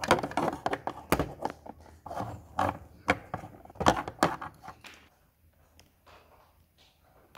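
Plastic toy horse figure's hooves tapped and knocked on a hard plastic stable floor, an uneven run of clicks and knocks that dies down to faint scraping after about five seconds.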